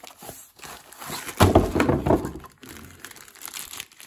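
Packaging crinkling and rustling as the accessories are taken out of the box, loudest for about a second midway.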